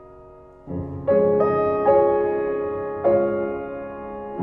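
Slow background piano music. A chord fades at first, then new chords are struck about a second in and again roughly every second, each left to ring out.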